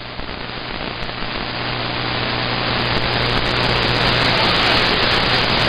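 CB radio static: a steady hiss from an open channel carrying no voice, with a low hum under it. It grows slightly louder and brighter from about halfway through.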